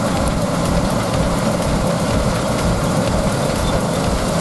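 John Deere CTS combine harvester running steadily under load while harvesting rice: an even engine and machinery noise with a low steady drone.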